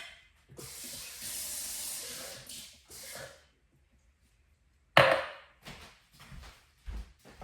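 Household handling sounds: about three seconds of hissing, then a sharp knock about five seconds in, followed by a few light clicks.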